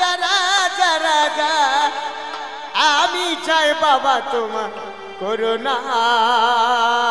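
Bengali Baul folk music: a melody line with wide vibrato and sliding pitch, continuous and at full level.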